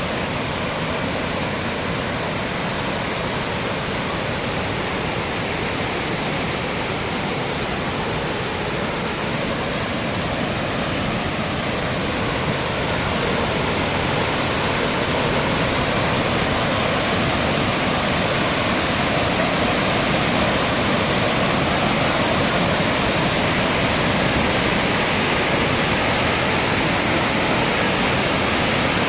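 Floodwater rushing steadily after heavy rain, a loud, even wash of water that grows a little louder about halfway through.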